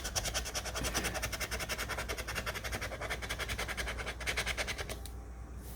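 Scratch-off lottery ticket being scratched with rapid, even back-and-forth strokes that stop about five seconds in.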